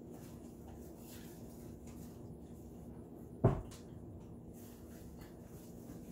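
Faint rubbing and handling noise from a raw turkey being worked in a stainless steel sink, broken by a single dull thump about halfway through.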